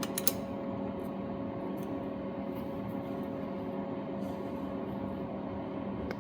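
Steady mechanical room hum, with a few light metallic clicks about a quarter of a second in and another near the end from a wrench working a very tight valve-adjuster lock nut on a small four-stroke engine.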